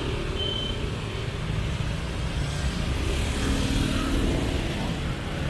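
Street traffic: a steady low rumble of passing vehicle engines and road noise. A single high electronic beep sounds right at the start.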